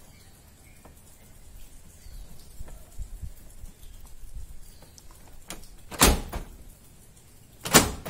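A new aluminium door lock pin being screwed onto the threaded lock rod of a Maruti 800 door, with faint scraping and handling. Then come two loud, sharp clunks about two seconds apart, from the door lock being worked by the new pin.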